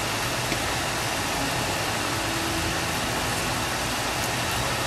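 Steady rushing kitchen noise with a low hum underneath, unchanging in level.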